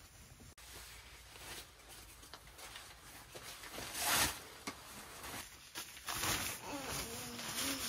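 Rustling and scraping of a fabric carry bag holding an inflatable sofa as it is handled and its top pulled open, with a louder rush of noise about four seconds in.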